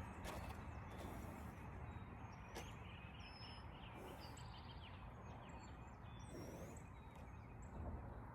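Birds chirping now and then over a faint, steady outdoor background, with a few brief rustles.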